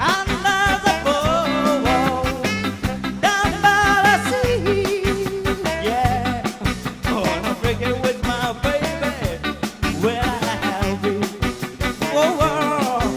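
A live band playing an upbeat, ska-style song, with a steady bass and drum beat under a melody line.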